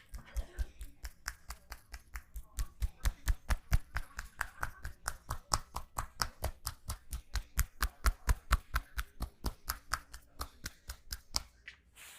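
Barber's hands striking the client in a fast percussive massage: a steady rhythm of about five slapping thumps a second that stops shortly before the end.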